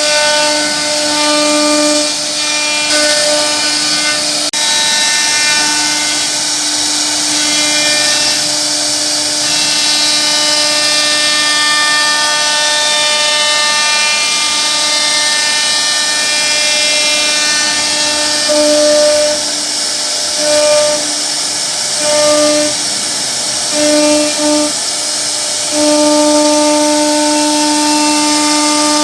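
CNC wood router running as it carves a wooden panel: a steady high whine at a fixed pitch over cutting noise. The whine swells and fades several times near the end as the cutting load changes.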